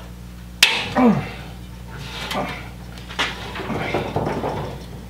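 Knocks and clatter of metal parts being handled, starting with a sharp knock about half a second in, over a steady low electrical hum.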